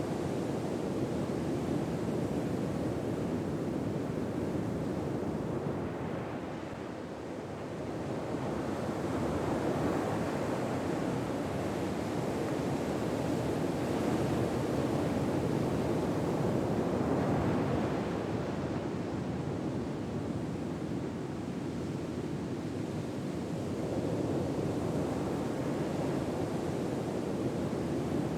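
Ocean waves washing onto a shore, a steady rush of surf that swells and falls back slowly every several seconds.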